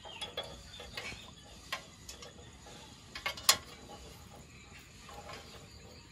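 Metal tongs clicking and scraping as whole scorpions are set down on a portable gas stove's burner and lifted off again. The clicks are irregular, with the sharpest and loudest about three and a half seconds in.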